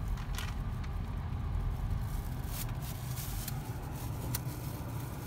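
Low, steady rumble of a Volkswagen ID.3 electric car moving slowly, heard from inside the cabin, with a few faint clicks.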